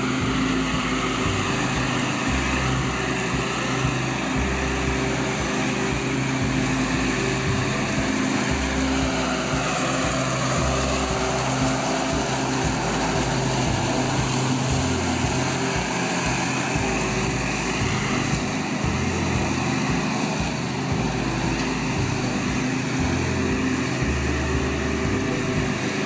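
Engine of a remote-controlled tracked mower running steadily as it tracks across the lawn towing a leaf sweeper.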